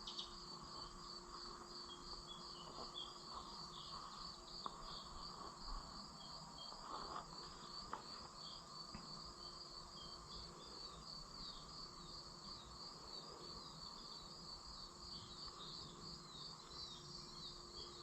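Crickets chirping faintly in a steady, even pulse of high chirps. A few faint clicks come in the middle.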